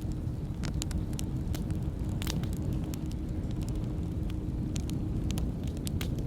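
Wood campfire burning: a steady low rumble of flames with scattered sharp crackles and pops from the burning logs.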